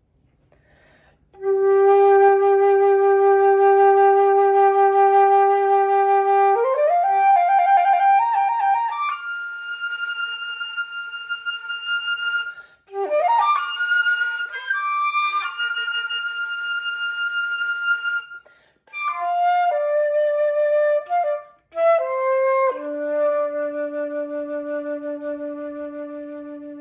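Solo flute playing unaccompanied: a long held low note, then a quick rise into higher sustained notes, broken by a few short pauses, ending on a long low note.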